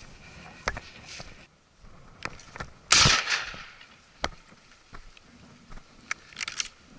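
A single shotgun shot about three seconds in, with a short tail dying away after it. Footsteps and small knocks are heard around it.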